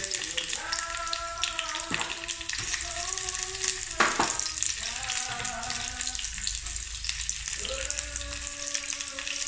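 Chicken pieces and sliced onion sizzling in oil in a nonstick frying pan, with one sharp clack about four seconds in. Long held pitched notes sound over the sizzle several times.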